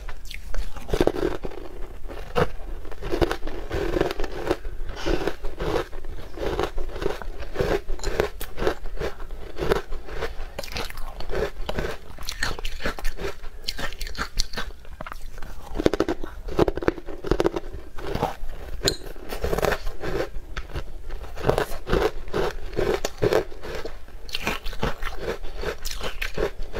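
Close-miked chewing and crunching of a crumbly green sweet: a dense, irregular run of crisp crunches and mouth clicks picked up by a clip-on microphone.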